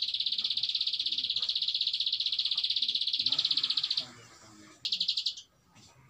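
Caged prenjak alang-alang, a prinia, singing a long, very fast pulsed buzzing trill (its 'ngebren'). The trill stops about four seconds in, and a short burst of the same trill follows about a second later.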